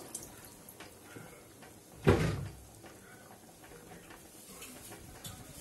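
A single dull thump about two seconds in, with a few light clicks around it, over the faint bubbling of chana dal boiling in an open pressure cooker.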